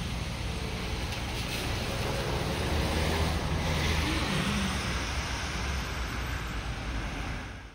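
Road traffic on wet pavement: a steady hiss of tyres over a low rumble, swelling as a vehicle passes near the middle.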